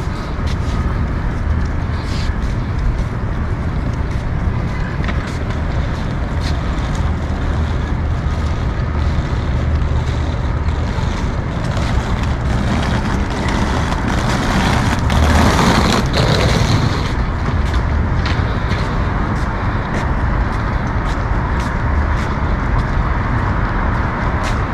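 City street traffic: a steady wash of passing vehicles, with one louder vehicle going by a little past the middle.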